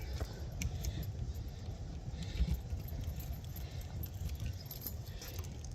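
Wind buffeting the microphone with a low rumble, over scattered light metallic clinks and jingles from a bunch of keys handled to unlock the gas locker.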